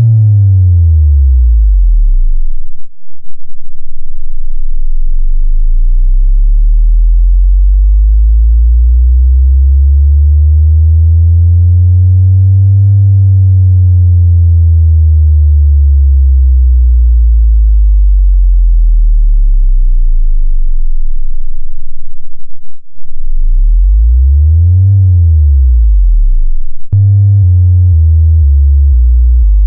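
Synthesized deep bass test tones, boosted +6 dB and played loud. A tone sweeps down into deep sub-bass, then swells slowly up and back down with a pulsing beat at its peak. A short quick rise and fall follows, and near the end comes a run of stepped low notes alternating up and down.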